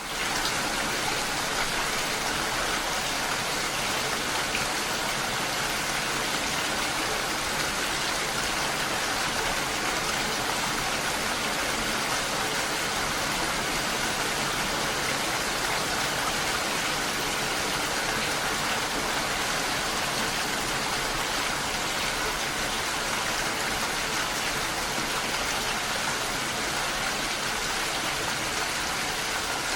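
Steady rain: a dense, even hiss of falling water with no distinct drops or thunder standing out, coming in quickly out of silence at the very start.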